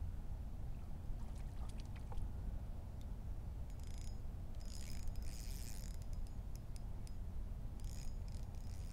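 Low wind rumble on the microphone, with a spinning reel being cranked in a few short spells as a small hooked bass is reeled in, a light whirring with faint clicks about four seconds in, again near the middle and near the end.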